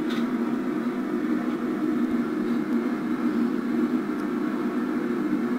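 A steady low hum with a hiss, unchanging in level and pitch.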